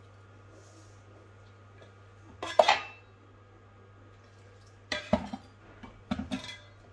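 Clattering of a stainless steel mixing bowl and an electric kettle being handled as water is added to bread dough: one loud ringing clank about two and a half seconds in, then two shorter bursts of clatter near the end.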